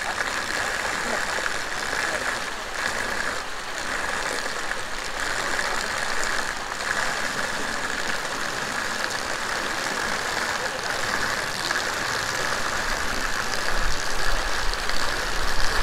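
Steady rush and splash of water pouring from a row of inlet pipes into a concrete trout raceway.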